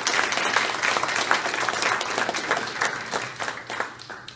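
Audience applauding: dense clapping from many hands that thins and fades away over the last second or so.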